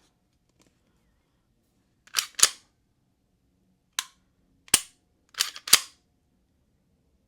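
Sharp metallic clicks from an unloaded Canik TTI Combat 9 mm striker-fired pistol being dry-fired and worked: the trigger breaking and resetting and the action cycling. There are six clicks, some in close pairs.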